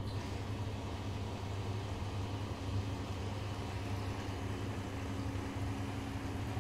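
Siemens iQ500 front-loading washing machine running, its drum motor giving a steady low hum.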